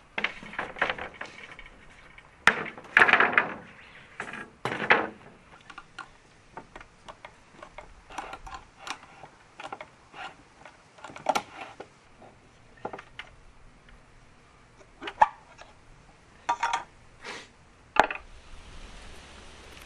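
Irregular wooden knocks and scraping clatter of cedar floorboards being slid and stacked, then scattered small clicks and taps from handling a metal paint can and prying off its lid. A steady hiss comes in near the end.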